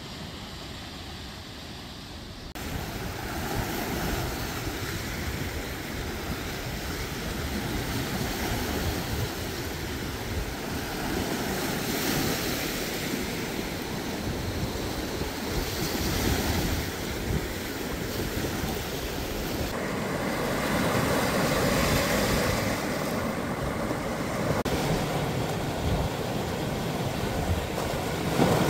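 Small shore waves breaking and washing in over rocks and pebbles, swelling and easing every few seconds, with wind rumbling on the microphone. The level jumps up about two seconds in.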